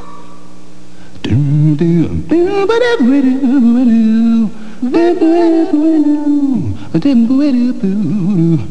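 A wordless voice in long, wavering notes, each sliding down in pitch at its end, four of them after a quiet first second, over a faint steady hum.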